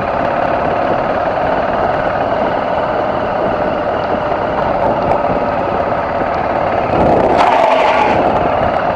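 BMW F650GS motorcycle engine running steadily while riding an off-road climb, getting louder and brighter for a moment about seven seconds in.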